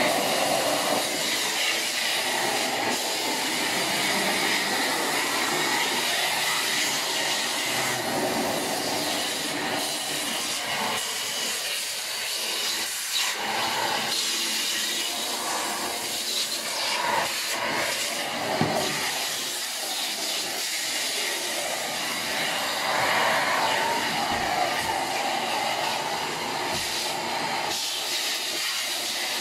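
Deerma DX115C corded stick vacuum running steadily with its narrow corner nozzle on, a continuous hiss of suction whose tone shifts slightly as the nozzle is worked along the floor edge.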